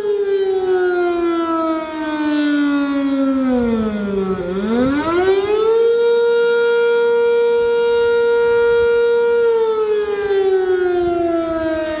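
Sentry 7V8 outdoor warning siren sounding the attack signal: its tone slides down for about four seconds, swoops back up and holds high for a few seconds, then starts sliding down again.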